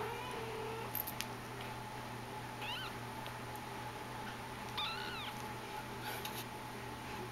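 A Persian kitten mewing: short, high, thin mews, two of them about three and five seconds in, after a softer, lower call at the start.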